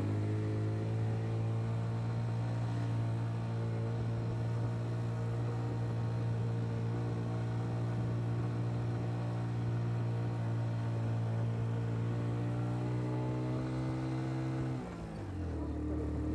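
A vehicle's engine running steadily while driving, its pitch creeping slowly upward. About fifteen seconds in, the pitch drops sharply and the sound dips briefly before it settles on a lower note, as at a gear change.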